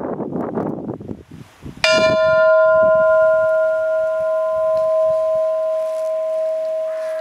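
A single stroke of a lone bell, struck about two seconds in and ringing on with one clear tone that fades slowly.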